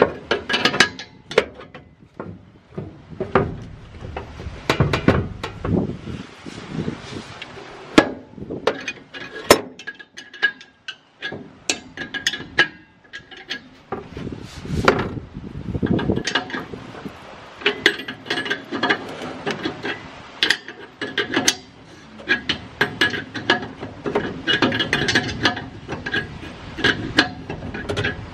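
Steel wrenches clicking and clinking against the fittings of an air-ride air tank as the air lines are loosened, in quick irregular runs of sharp metallic clicks with short pauses.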